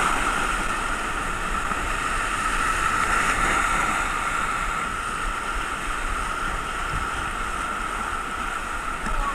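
Whitewater rapid rushing around a kayak at water level: a steady, unbroken rush of churning river water.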